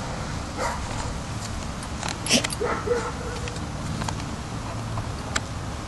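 Two dogs playing, giving a few short vocal sounds, the loudest about two seconds in, with scattered clicks and scuffles over a steady low background rumble.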